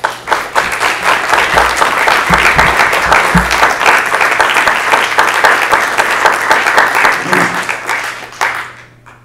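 Audience applauding, with dense clapping that dies away near the end. A few low thumps sound during the first few seconds.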